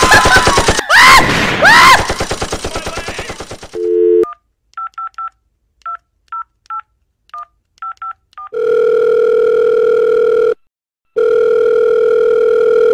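A man's wild, deranged laughter for the first few seconds. It is followed by a brief phone dial tone and a quick run of touch-tone keypad beeps as a number is dialed. Then comes the ringing tone of the call, two long rings with a short gap between.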